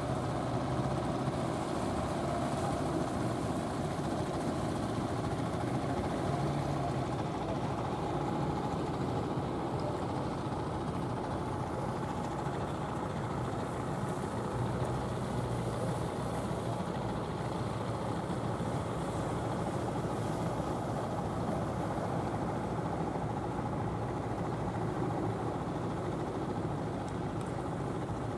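Inboard engines of wooden fishing boats running steadily, a continuous low drone with a faint hum.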